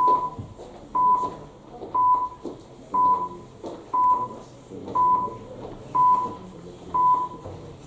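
Electronic voting system's countdown timer beeping once a second, marking off the seconds left to vote. Each beep is a short, steady, single-pitched tone; there are eight in a row.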